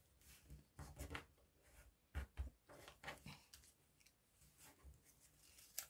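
Faint rustling and crinkling of a sheet of origami paper as fingers fold it and press its creases, with scattered small clicks and a couple of soft low thumps about two seconds in.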